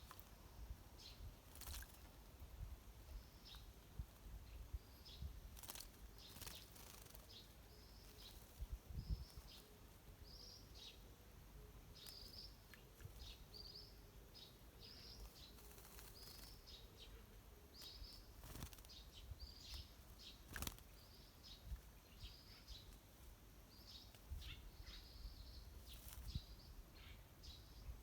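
Wild birds chirping faintly: a long run of short, high chirps, with a few sharp clicks here and there.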